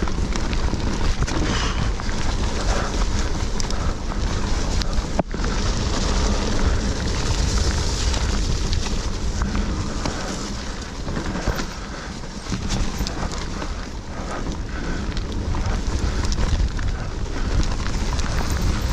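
Mountain bike riding fast down a dirt woodland trail: wind buffeting the rider-mounted camera's microphone over the rolling tyres, with frequent small knocks and rattles from the bike over the rough ground.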